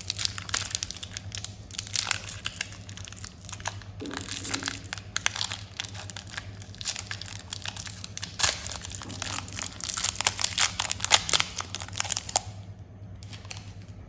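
Plastic candy wrappers crinkling and tearing as they are opened by hand, a dense run of crackles that stops near the end.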